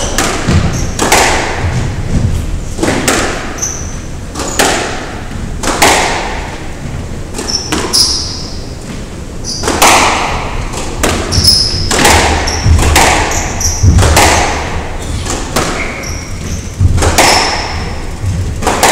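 Squash rally: the ball is struck by the rackets and smacks off the walls about once a second, each hit ringing in the enclosed court. Short high squeaks of court shoes on the wooden floor come between the hits.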